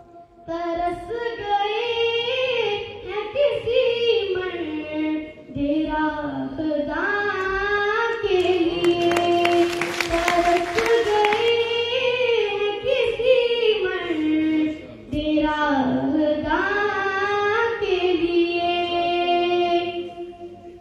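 A single high voice singing unaccompanied, a naat-style devotional melody in wavering, ornamented phrases broken by short pauses. About halfway through, a few seconds of crackling noise sit under the singing.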